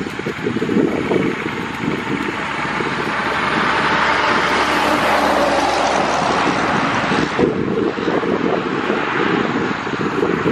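Twin turboprop engines of a Dash 8-200 running with propellers spinning, a steady loud roar and hiss. The hiss swells in the middle and drops off sharply about seven and a half seconds in. Gusty rumble underneath from wind on the microphone.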